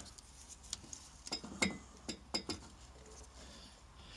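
A few light clicks and taps, about six over a couple of seconds, from hands handling motorcycle parts and wiring during reassembly.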